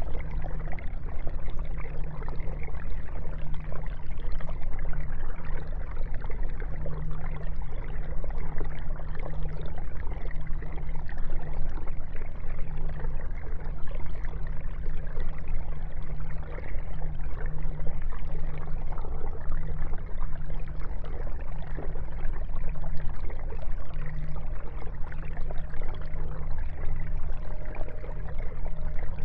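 Aquarium filter running: a steady trickle and splash of water pouring back into the tank, with a constant low hum underneath.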